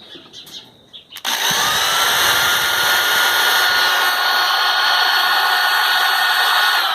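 Electric drill running through a homemade speed control built from a blender's speed switch: the motor switches on about a second in, spins up with a rising whine and then runs at a steady speed.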